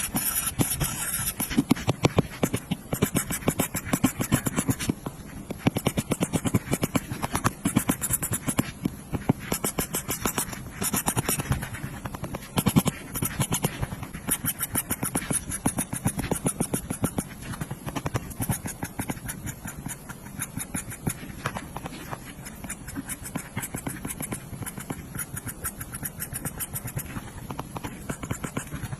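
Apple Pencil tip tapping and stroking on an iPad's glass screen: a rapid, uneven run of small clicks and light scratches.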